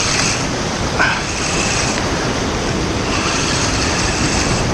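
Sea surf surging and washing over shoreline rocks: a steady rushing wash of white water.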